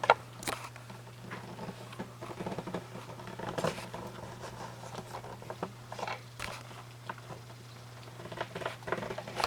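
Scattered clicks, taps and rustles of a camera being handled and fitted onto a tripod close to the microphone, the sharpest click right at the start, over a steady low hum.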